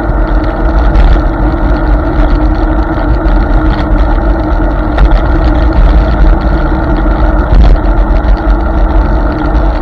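Riding noise from a Hiboy S2 Pro electric scooter on wet pavement: a loud, steady low rumble of wind and road on the scooter-mounted microphone, with tyre hiss over it.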